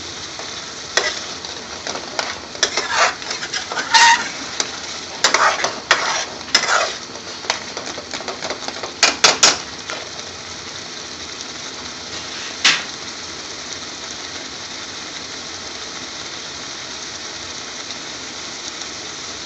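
Metal spoon stirring and scraping through a thick lentil curry in a metal pan, with sharp scrapes and clinks over the first ten seconds and one more clink a few seconds later. Under it, the curry simmers with a steady sizzling hiss.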